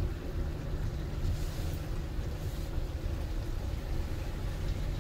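Steady low rumble inside the cab of a 2022 Nissan Frontier, its 3.8-litre V6 and tyres working slowly along an off-road trail.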